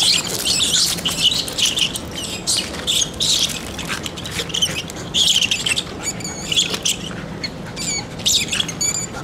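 A rat squealing over and over in short, high-pitched bursts as a terrier seizes and shakes it.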